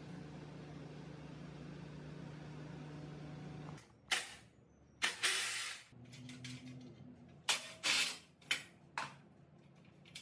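A small motor hums steadily and cuts off about four seconds in, followed by half a dozen short, hissing bursts of noise.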